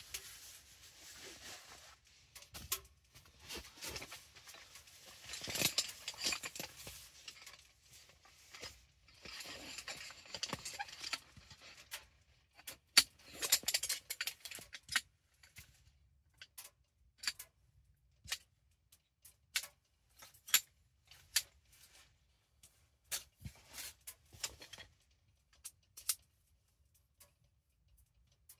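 Camp gear being handled and set up: fabric and bags rustling for the first half, then an irregular run of sharp clicks and light knocks, the loudest about a dozen seconds in.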